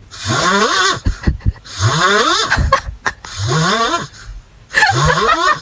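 A pet snoring loudly, four noisy breaths about a second and a half apart, each with a rising squeaky tone.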